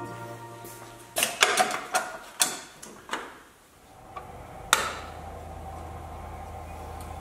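Sharp metallic clicks and taps from a sheet-steel repair panel being handled and held up against a car's sill: a quick cluster about a second in, then one more a little before five seconds. A steady low hum runs under the later part.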